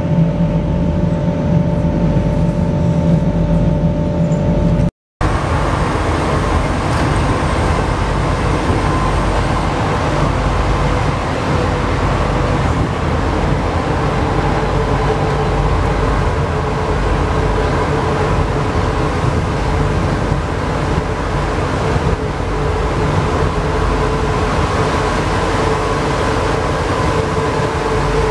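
Alstom NS-93 rubber-tyred metro train running, with steady rolling noise and a traction motor hum. The sound drops out briefly about five seconds in, then continues as heard inside a moving passenger car.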